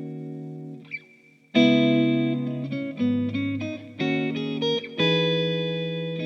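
Electric guitar played through a Kemper Cab speaker using the Kemper 'Deluxe First Call' amp profile. A chord rings and fades to a brief pause about a second in; then a phrase of struck chords and single notes with a low bass note near the middle, ending on a chord struck about 5 s in that is left to ring.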